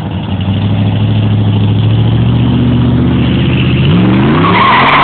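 Second-generation Chevrolet Camaro's engine running under load as the car pulls away, growing louder. About four seconds in it revs up sharply, and a loud tyre squeal starts just before the end.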